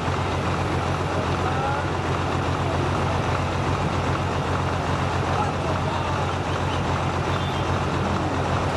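Mil Mi-17 helicopter running on the ground with its main rotor turning: a steady, loud whir of rotor and turbine engines with a fast low flutter from the blades.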